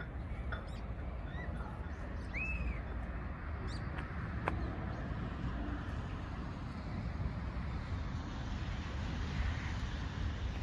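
Outdoor ambience: a steady low rumble of wind on the microphone, with a few short, high bird chirps scattered through the first half.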